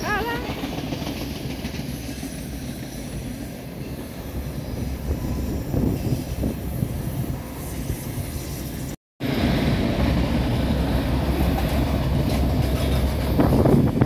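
Freight train of autorack cars rolling past below, a steady rumble of wheels on rails. The sound cuts out for a moment about nine seconds in and comes back louder.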